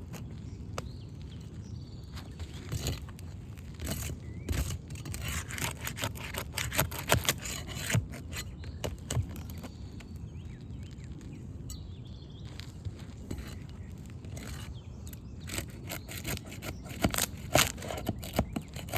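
Three-tab roof shingles being worked loose, scraping and crackling as the sealed edges are pried up and torn. The clicks and scrapes are irregular and come in two busy stretches, one about four seconds in and another near the end.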